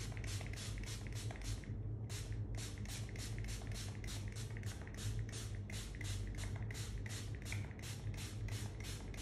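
Small hand-held spray bottle misting water onto an ink wash on paper, its trigger pumped rapidly in short hisses, about three or four a second, with a brief pause about two seconds in. A steady low hum runs underneath.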